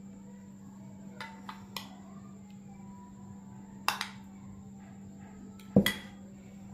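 Kitchen utensils clinking against a dish: three light taps, a sharp clink about four seconds in, and two louder knocks close together near the end, over a steady low hum.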